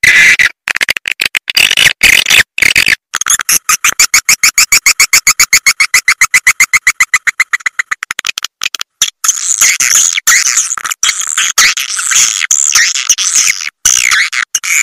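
Swiftlets twittering, played as a swiftlet-farming call-and-lure sound for drawing the birds to a nest house. In the middle it is a fast, even trill of about ten chirps a second, then denser, higher chattering, with abrupt cuts to silence throughout.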